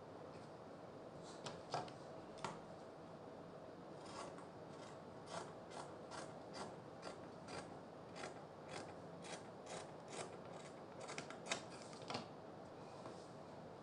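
Scissors snipping through folded cloth: a few scattered cuts, then a steady run of short, quiet snips, two or three a second, from about four seconds in until near the end.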